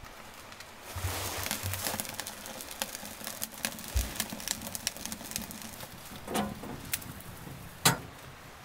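Freshly lit kindling catching and crackling with irregular sharp pops in the firebox of a small steel wood stove (Wood & Burn Mystove Regular Plus). Near the end a sharp metal clack as the stove's glass door is shut.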